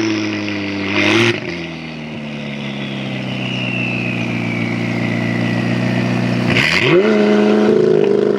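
McLaren 570S's 3.8-litre twin-turbo V8 (M838T) running. Its note steps down about a second in, holds steady, then climbs sharply near the end, with a short burst of noise at each change.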